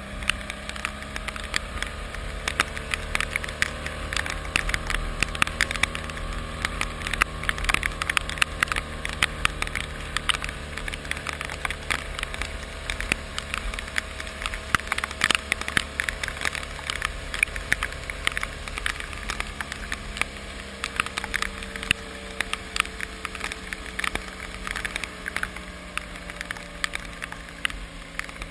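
Raindrops hitting a hard surface close to the microphone, a dense irregular crackle of ticks, over a steady vehicle engine hum.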